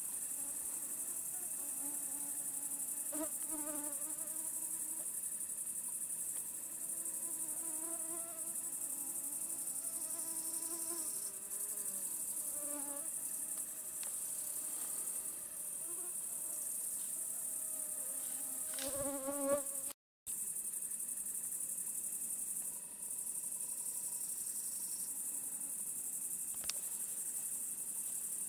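Steady high-pitched trilling of crickets in the evening, with a flying insect whining close by now and then, its pitch wavering. The sound cuts out for an instant about two-thirds of the way through.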